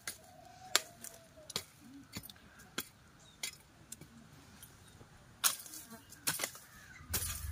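Faint, sharp clicks or taps at a steady pace, about three every two seconds.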